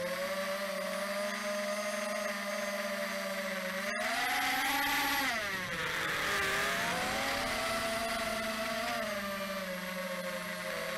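Radio-controlled model airplane's motor and propeller running with a steady drone. About four seconds in, after a sharp click, the pitch rises, then glides down and wavers before settling again.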